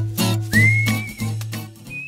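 Upbeat jingle music with a whistled melody line over a steady bass and light percussion ticks, the whistle sliding up into a held note about half a second in, then the music trailing off near the end.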